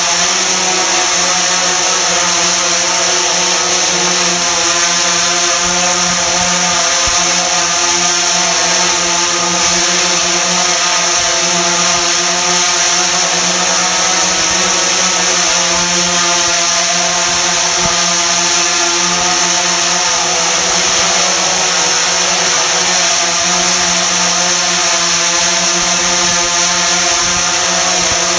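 DJI Phantom 3 Professional quadcopter hovering, its four motors and propellers giving a steady buzz with a high whine over it.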